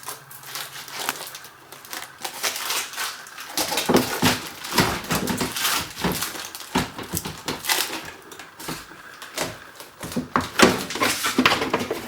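Hands working the plastic parts of a new tail light: irregular plastic clicks, knocks and crinkling, consistent with pulling off the housing's plastic shipping clips. The clicking gets busier and louder from about three and a half seconds in.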